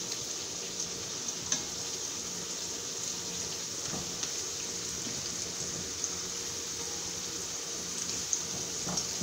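Thin sweet potato slices frying in hot oil in a skillet: a steady sizzle with a few faint clicks scattered through it.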